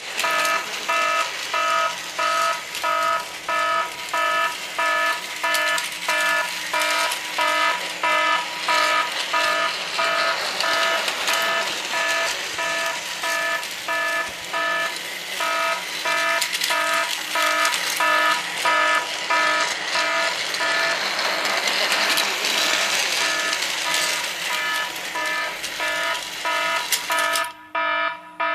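Toy model-railway level-crossing warning bell ringing in a steady repeating electronic ding-ding, about two rings a second, over a steady noisy rushing that stops sharply about a second before the end while the ringing goes on.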